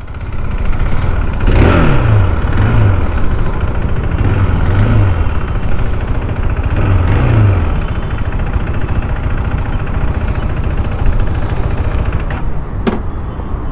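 2023 KTM RC 390's single-cylinder engine pulling the bike along at low speed. Its note rises and falls with three short openings of the throttle in the first half, then runs steadier and lower.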